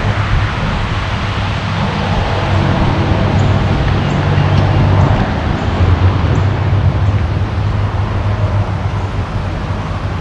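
Wind buffeting the microphone during a walk outdoors: a steady low rumble with a rushing hiss over it.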